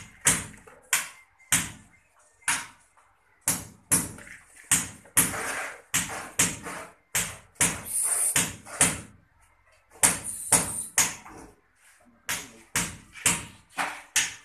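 Construction work on concrete: an irregular run of sharp knocks, often about two a second, with short spells of scraping in between.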